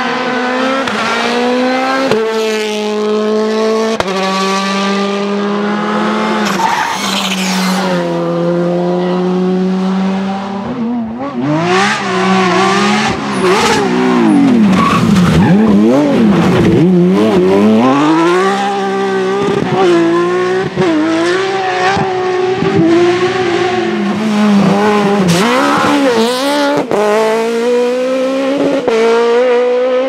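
Rally car engines at full throttle, one car after another. The engine note climbs and drops back in steps at each gearshift. In the middle stretch a Porsche 996 GT3's flat-six revs hard, rising and falling quickly through shifts and lifts.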